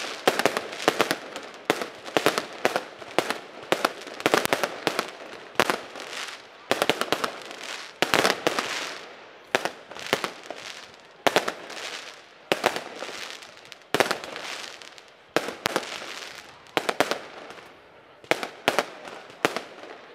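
A fireworks display: shot after shot bursting in quick succession, a sharp bang about every half second to second, with crackling and fizzing between the bangs.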